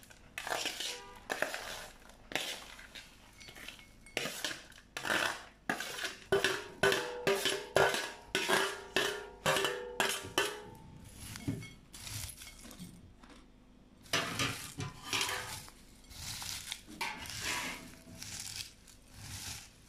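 Dry fried peanuts and flattened rice rattling and sliding off a metal plate into a glass bowl, the plate clinking against the bowl, in many irregular short clatters. Near the end a hand stirs the crisp mix of crushed papad and rice chips, rustling and crunching.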